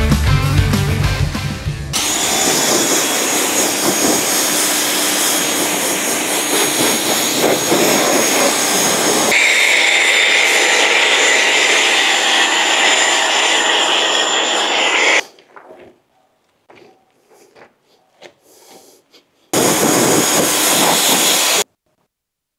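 Rock music ends about two seconds in. Then a pressure washer sprays water and foam in long, steady hissing stretches, its sound shifting about halfway through. It stops, then comes back for one short burst near the end.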